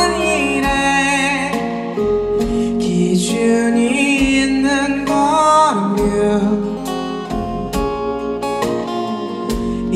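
Live pop music: a man singing into a microphone over strummed acoustic guitar and band accompaniment.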